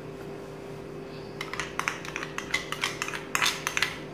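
Thick hung curd being scraped and tapped out of a small plastic bowl into a plastic mixing bowl of chicken: a run of quick clicks and scrapes starting about a second and a half in, busiest near the end.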